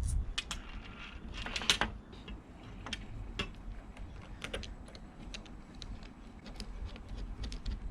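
Irregular light clicks and taps of small parts and tools being handled during a motorcycle tail tidy fitting, with a cluster of louder clicks a little under two seconds in.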